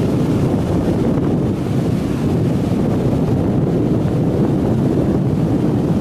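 Waves breaking and washing up a sandy beach, with wind buffeting the microphone. It is a steady, dense noise with no breaks, heaviest in the low range.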